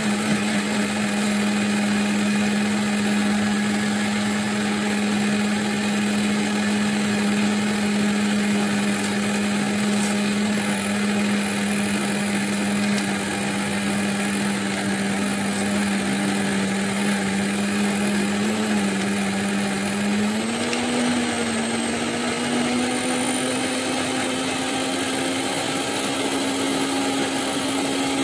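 Electric countertop blender running steadily, its motor whirring as it blends a dessert mixture. About two-thirds of the way through, the motor's pitch dips briefly, then settles slightly higher for the rest.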